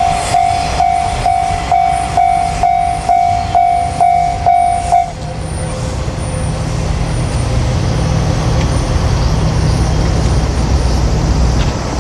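Japanese railway level-crossing alarm ringing a steady ding about twice a second, cutting off suddenly about five seconds in. Beneath it runs a steady low rumble that swells after the bell stops.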